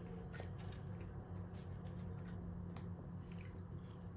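A person chewing fast food close to the microphone, with many small, sharp, moist mouth clicks, over a steady low hum.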